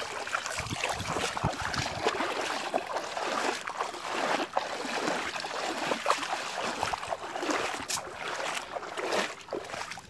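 Shallow river water sloshing and splashing irregularly as bare feet wade through it and a wet cast net is dragged along the surface.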